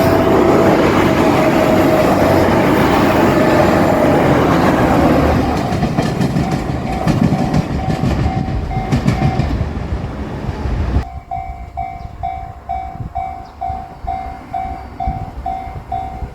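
A JR Shikoku 2700-series limited-express diesel train runs through a level crossing, loud at first, then fading with a clatter of wheels over rail joints. The crossing's alarm bell rings throughout at about two and a half clangs a second. The train noise drops away suddenly about two-thirds of the way through, leaving the bell ringing alone.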